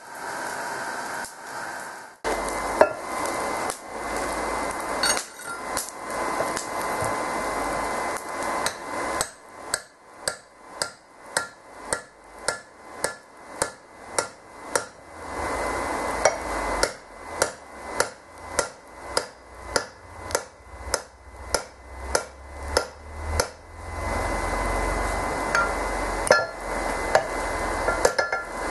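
Hand hammer striking red-hot steel on an anvil in steady blows, about two a second, with a faint ringing after each strike. The blows drive a drift into the eye of a sledgehammer head being forged into a straight peen hammer, then fall on the head itself.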